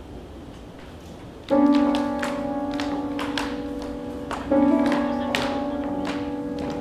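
Music: a sustained chord struck twice, about three seconds apart, each time ringing and slowly fading, with light taps scattered over it.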